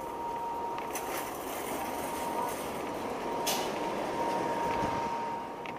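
Small cart wheels rolling over pavement: a steady rumbling clatter with a thin steady whine, and one sharp click about three and a half seconds in.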